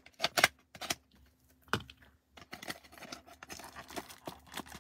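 Utility knife slitting the cellophane wrap on a trading card box: a few sharp clicks and scrapes in the first two seconds, then a steady rustle of plastic wrap and card packs being handled.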